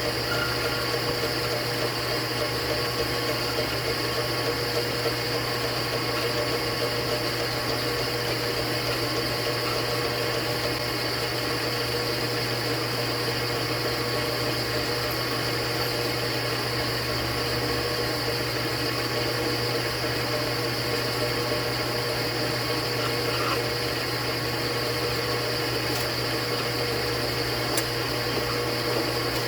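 Steady hum of an electric motor running with no change in speed, a strong low hum under a fainter high whine.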